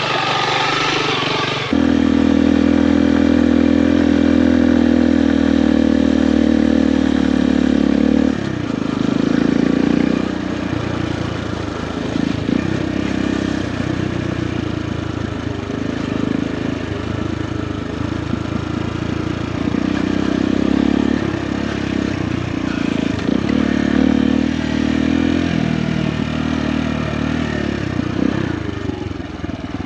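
Motorcycle engine running at a steady speed for about six seconds, then rising and falling in pitch again and again as the throttle is worked.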